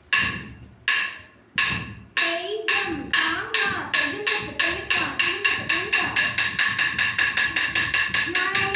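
Wooden time-keeping stick striking a wooden block for classical Indian dance practice: a few slow, spaced beats, then from about two seconds in a fast steady beat of about four to five strikes a second. A voice chants short rhythm syllables along with the beats.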